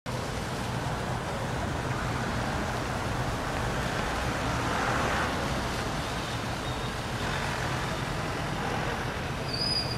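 Road traffic running steadily, with one vehicle swelling past about halfway through.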